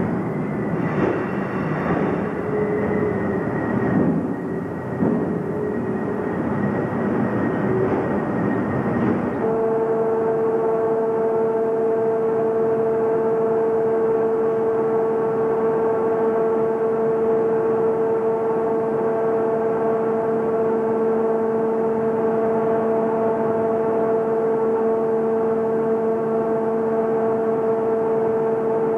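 Steady machinery drone on a train ferry's rail deck, holding several unchanging tones. The first nine seconds or so are a rougher, uneven rumble with a few knocks, changing abruptly to the even drone.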